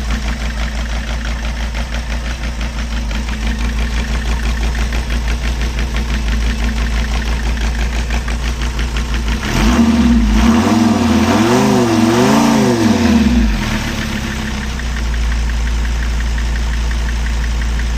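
Mercedes Sprinter direct-injection diesel engine running cold with an uneven, shaking idle and misfires. About nine seconds in it is revved up and down a few times for around four seconds, then drops back to a steadier idle.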